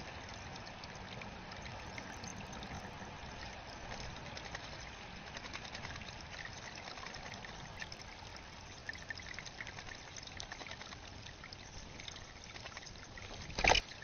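Water trickling in a shallow rock-lined bird bath, with small splashes from an American robin bathing in it. Near the end comes one sudden loud flurry of splashing and wingbeats as the bird takes off.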